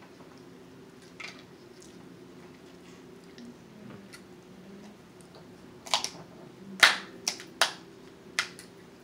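Snow crab leg shells cracking as they are cut with kitchen scissors and broken by hand: a faint click early, then about six sharp cracks from about six seconds in, the loudest about seven seconds in.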